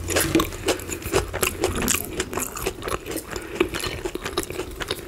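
Close-miked chewing with many small wet mouth clicks and smacks at an irregular pace, with some crackling as crispy fried chicken breading is pulled apart by hand.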